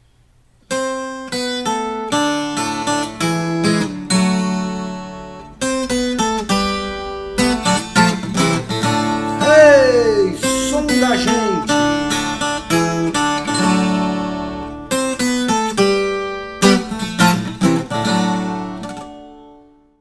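Acoustic guitar played solo, plucked notes and chords ringing out, with one falling glide about halfway through; it starts about a second in and fades away near the end.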